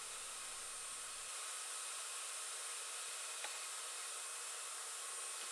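Steady, even hiss with no tool cutting; the deepest part of the sound drops away about a second in.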